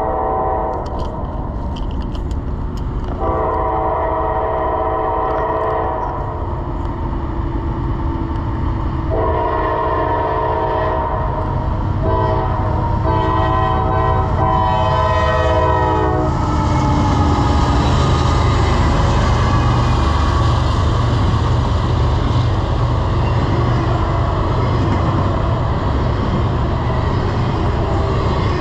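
A freight locomotive horn sounds the grade-crossing signal: long, long, short, long blasts, the last one ending about sixteen seconds in. The diesel locomotives and then double-stack intermodal well cars pass close by, with a loud steady rumble of engines and wheels on rail.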